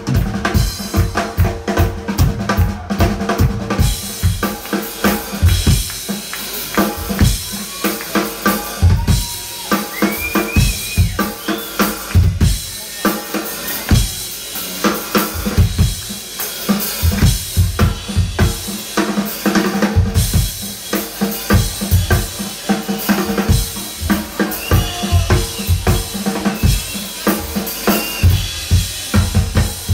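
Live blues band: a drum kit played hard, with steady bass drum and snare hits, under electric guitar and bass. A few sliding high guitar notes come in about ten seconds in.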